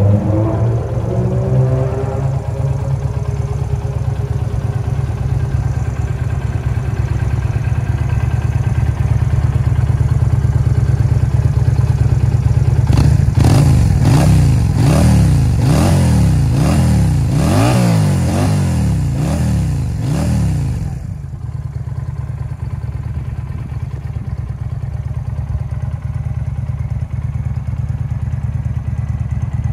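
Yamaha Drag Star 250's air-cooled V-twin, fitted with an aftermarket muffler, idling steadily. From about 13 s to 21 s the throttle is blipped repeatedly, roughly once a second, each rev rising and falling, and then the engine settles back to idle.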